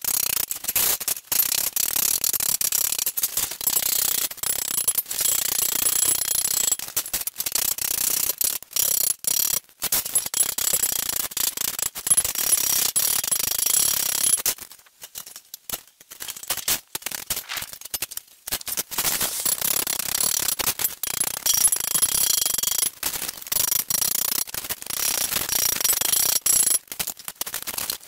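Claw hammer tapping quickly and repeatedly on thin sheet steel to fold it over along an edge, in long runs of sharp metallic strikes with a pause of about a second and a half near the middle.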